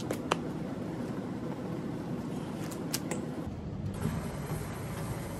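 Gym treadmill running steadily at 3 mph on a 12 incline, motor and belt with walking on it. A few short, sharp clicks near the start and again about three seconds in.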